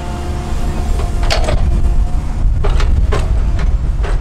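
Hydraulic excavator working: its diesel engine runs with a steady low rumble and a faint hydraulic whine, louder from about a second in as the arm and bucket move. About five sharp clanks from the bucket and arm come through it.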